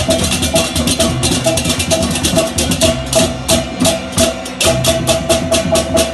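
Balinese baleganjur gamelan playing: fast, steady clashing of cengceng hand cymbals over a repeated gong-chime note and kendang drum strokes.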